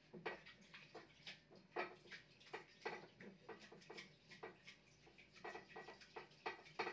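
Faint, irregular clicking and tapping, a few clicks a second.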